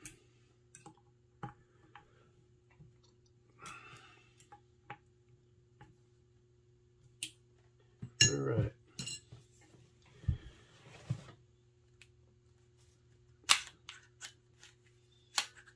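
Scattered clicks, clinks and knocks of small metal air-rifle parts and tools being handled and fitted, with a cluster of louder knocks about eight seconds in, a brief rubbing sound just after, and a sharp click about thirteen and a half seconds in. A faint steady hum sits underneath.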